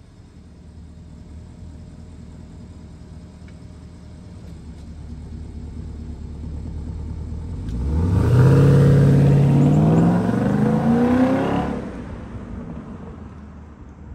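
Porsche Cayenne S 4.8-litre V8 idling, then accelerating away. About eight seconds in, the engine note jumps up and climbs steadily in pitch for about four seconds, then drops off and fades as the car moves into the distance.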